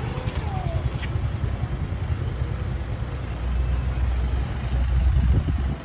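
Motorcycle engine running with a steady low wind rumble on the microphone while riding; the rumble swells over the last couple of seconds.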